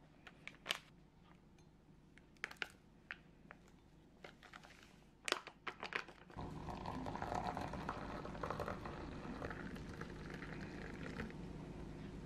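A plastic sachet of hot chocolate powder crinkling and crackling in the hand as it is opened and tipped over a glass. About six seconds in, a steady hiss sets in and carries on.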